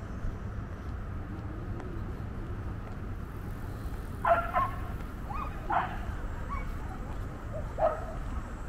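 A dog barking a few short times in the second half, over a steady low rumble of wind and distant traffic.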